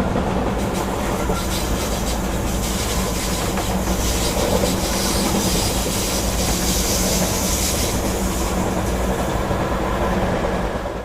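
Railway train running steadily on the track: a continuous rumble with the wheels clicking over the rail joints. The level holds even throughout, with no rise and fall of a passing train.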